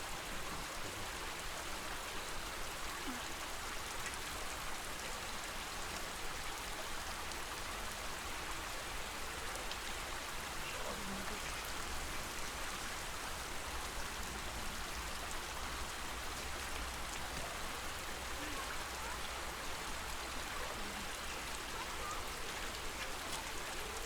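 Steady lake-water ambience of flamingos moving through shallow water: a continuous even splashing, trickling hiss with no pauses, a few faint short sounds here and there.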